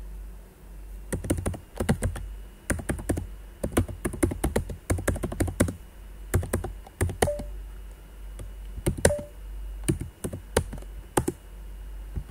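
Computer keyboard being typed on: quick runs of keystrokes in several bursts, with short pauses between them.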